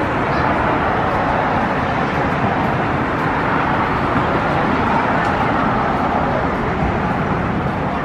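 Steady traffic noise, a continuous roar of passing vehicles that swells slightly in the middle.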